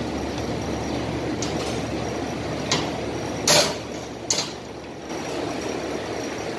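Short metallic clinks of wrenches on the bolts of a truck air-brake chamber as they are worked loose, four of them with the loudest about halfway through. A steady low rumble runs underneath.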